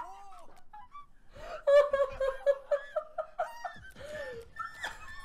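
Young men's voices singing strained, high-pitched 'ah, ah, ah, oh' notes as a joke, with a long stretch of repeated notes on one pitch. Stifled laughter is mixed in.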